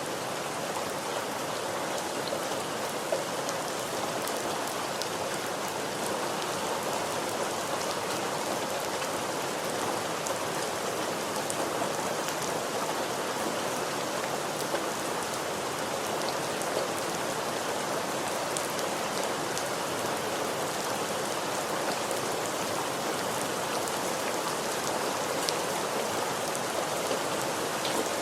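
Steady rain falling: an even hiss with scattered sharper ticks of individual drops landing.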